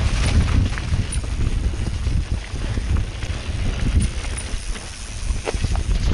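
Mountain bike descending a dirt singletrack at speed: tyres rolling over dirt and roots, with scattered knocks and rattles from the bike, and wind buffeting the microphone as a heavy low rumble.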